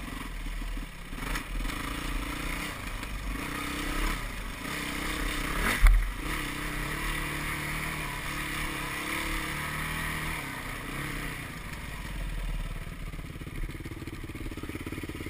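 Yamaha WR450F dirt bike's single-cylinder four-stroke engine running under way, its note rising and falling with the throttle. One sharp knock about six seconds in.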